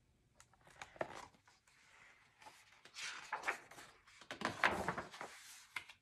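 Pages of a hardcover picture book being turned and the book handled: a few bouts of paper rustling with small taps and clicks.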